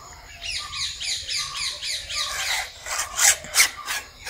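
Sections of a fibreglass telescopic harvesting pole being pulled out, rubbing with a few short rasping scrapes near the end. In the first half a bird chirps repeatedly in quick descending notes.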